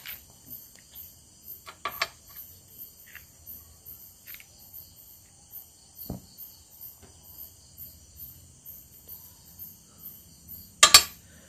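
Crickets chirping steadily, a high pulsing trill at about two to three pulses a second. A few faint clicks come through it, with a low thump about six seconds in and a short, loud noisy burst near the end.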